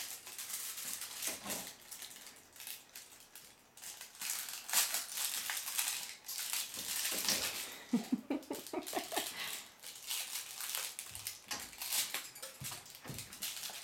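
A crumpled wrapper crinkling on and off as a baby handles and mouths it, with a brief babble from the baby about eight seconds in.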